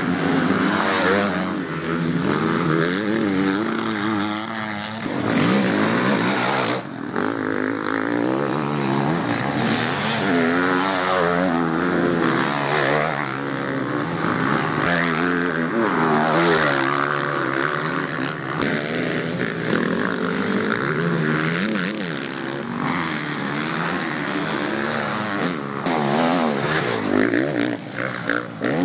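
Several motocross bikes' engines revving as they ride the dirt track, the pitch repeatedly rising and falling with throttle and gear changes.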